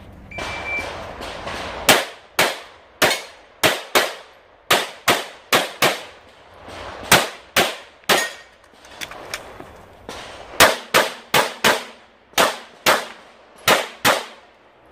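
Handgun shots fired in rapid strings during a practical shooting stage: about twenty-five sharp reports from about two seconds in, in quick bursts with short pauses between. A short high beep sounds near the start, before the shooting begins.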